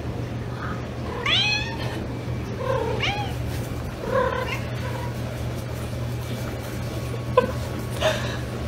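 A cat meowing, about four calls, the first and loudest about a second in, over a steady low hum. A sharp tap comes near the end.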